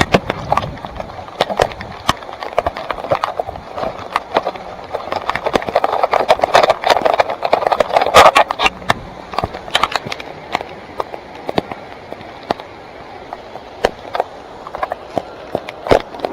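Mountain bike (2017 Salsa Timberjack) riding over a rough trail: tyres rolling over dirt and rocks with a steady rumble, and frequent sharp clicks and knocks from the bike rattling over bumps, heaviest about six to nine seconds in.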